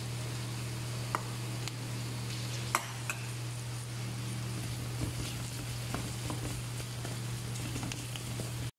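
Chopped onion frying gently in oil in a wok: a low sizzle with a few sharp pops, over a steady low hum. A wooden spatula starts stirring near the end, and the sound cuts off suddenly just before the end.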